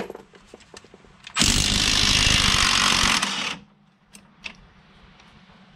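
Cordless impact wrench with a 21 mm deep-well socket hammering off a strut-to-knuckle nut in one burst of about two seconds, starting over a second in. A few light clicks of the socket and tool come before and after it.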